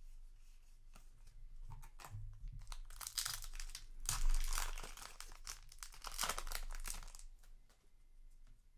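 Foil booster pack wrapper crinkling and tearing as it is opened, in irregular crackly bursts that are loudest in the middle of the stretch.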